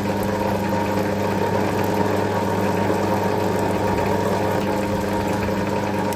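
Metal lathe running with a steady hum from its motor and drive, the chuck turning while a threading tool takes a cutting pass on a small 3/8 BSF screw blank.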